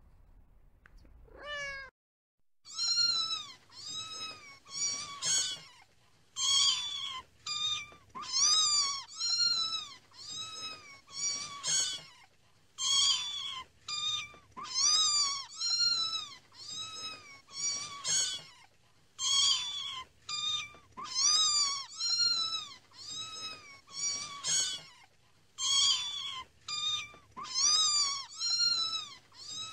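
A cat meowing over and over: short, high meows one after another, about one to two a second, starting about two and a half seconds in.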